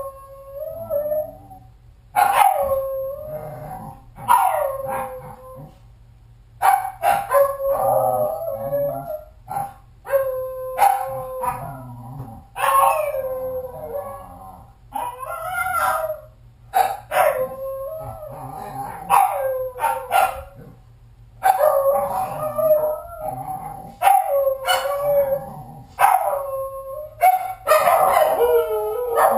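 A dog left home alone howling and barking over and over: a long series of drawn-out calls, each falling in pitch at its end, with short gaps between them.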